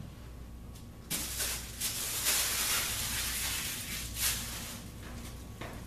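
A scratchy, hissing rustle that starts about a second in and lasts about three seconds: hands rubbing over and pressing down self-adhesive carpet squares.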